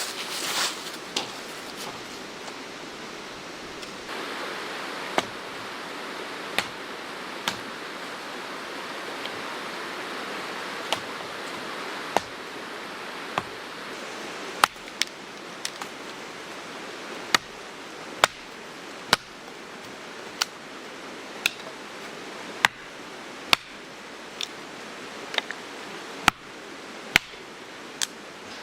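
Wood campfire burning, with a steady hiss and sharp, irregular crackles and pops about every second or two.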